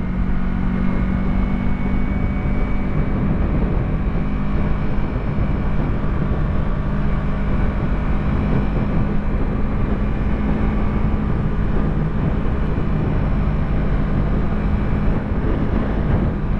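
Yamaha YZF-R3's parallel-twin engine running steadily at cruising speed, with wind rushing over the microphone.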